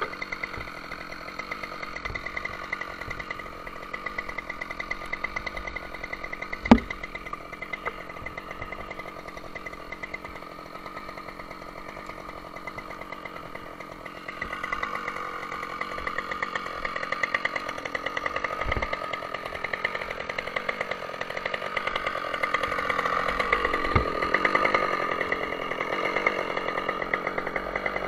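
Husqvarna two-stroke chainsaw running steadily at low speed, getting louder about halfway through, with a few sharp knocks.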